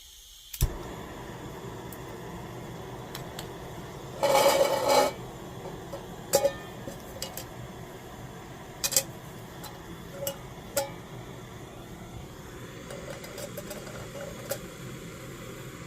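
Camping cookware being handled: a metal pot or pan clatters about four seconds in, followed by scattered sharp clicks and clinks, over a steady hiss.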